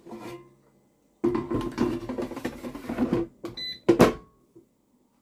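The basket of a Cosori air fryer is handled and slid back into its drawer with a scraping rattle. A short electronic beep follows, then one sharp clack as the basket shuts home.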